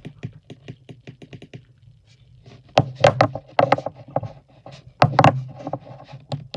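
Small plastic fidget cubes being handled: a quick row of light clicks, about eight a second, then a run of louder clacks and knocks, over a low steady hum.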